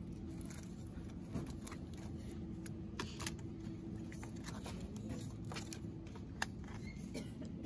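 Small plastic cheese-spread tubs clicking and knocking as a hand shifts them on a shelf, a few sharp clicks standing out, over a steady low hum.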